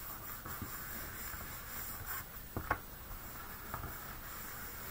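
Soft rustling of a cotton rag rubbed over a paper-covered notebook cover, wiping off excess fabric glue, with a few light taps about halfway through.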